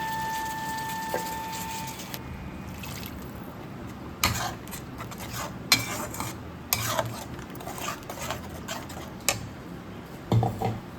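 A dozen or so sharp clinks and knocks of hard objects being handled, starting about four seconds in, after a held musical tone fades out in the first two seconds.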